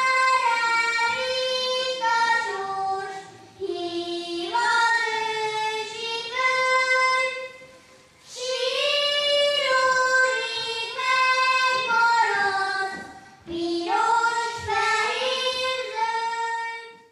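A high solo voice singing a slow melody in long held phrases with short pauses for breath; the song ends near the end.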